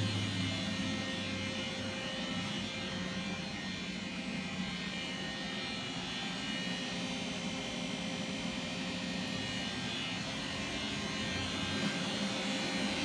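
Steady mechanical hum with a faint held whine and hiss, unchanging throughout.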